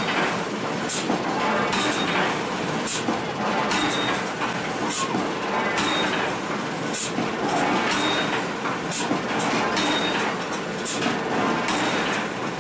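Steady clattering forge-shop machinery noise, with a sharp metallic strike about every two seconds.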